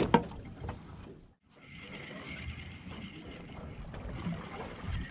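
A few sharp knocks and rattles as a landed flathead is handled in a landing net on a boat. After a brief dropout, steady wind and water noise around a drifting boat follows, with a faint steady high tone.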